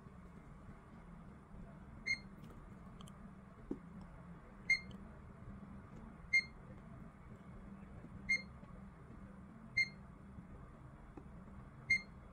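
Digital multimeter giving a short high beep six times, every couple of seconds, as its probes touch the parts being tested in diode-test mode. The meter reads about 0.25 V, a working Schottky diode. A faint low hum runs underneath.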